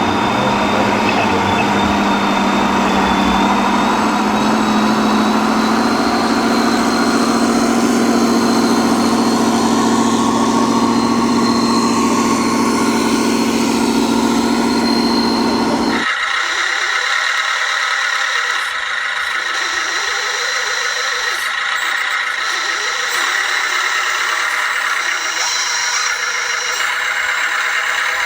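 Radio-controlled scale construction machines running, a steady engine-like motor hum that rises slightly in pitch after a few seconds. About sixteen seconds in it switches abruptly to a thinner, higher sound without the low hum.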